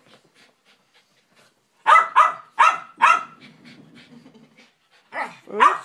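Small dog barking in sharp high yaps: four in quick succession about two seconds in, then two more near the end.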